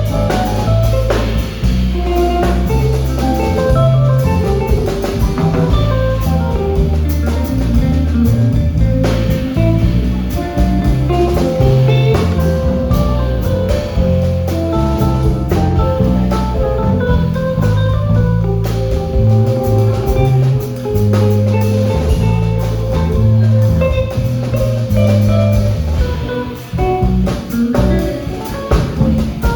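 Jazz band playing: electric guitar lines over walking bass and a drum kit.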